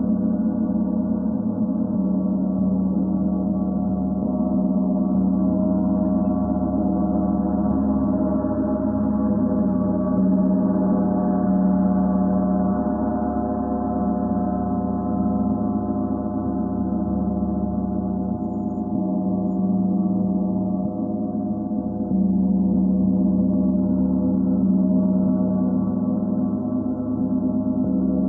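Symphonic gong played continuously with soft round-headed mallets: a dense, unbroken wash of many overlapping sustained tones that swells slightly and ebbs without ever dying away.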